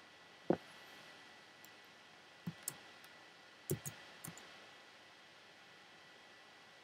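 Several short sharp clicks, some in quick pairs, over faint steady hiss and a thin high tone: a computer mouse being clicked.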